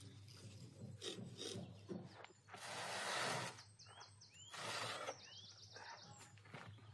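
Large metal baking tray scraping and grating as it is dragged out of a brick oven, with two loud scrapes about three and about four and a half seconds in, and short squeaks and a quick rattle in between.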